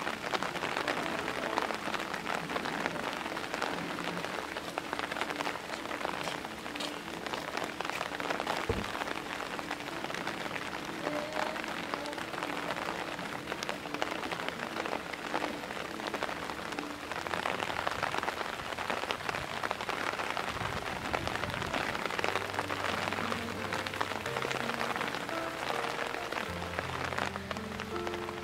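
Heavy rain falling steadily, a dense even hiss of drops, with faint background music underneath whose low notes grow clearer near the end.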